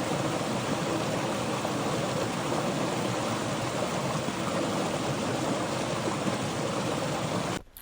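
Rushing water, a steady even rush that cuts off abruptly near the end.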